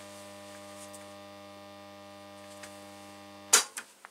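Helkama HR 886 WS 1950s tube radio giving out a steady low mains hum with many overtones instead of sound. The hum should not be there: the set needs repair before it can be listened to. Near the end the hum cuts off with a sharp click, followed by a few smaller clicks.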